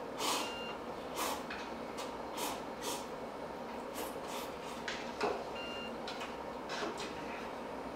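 A person slurping noodles from a cup of instant ramen: a series of short, hissy slurps about a second apart, the loudest about five seconds in.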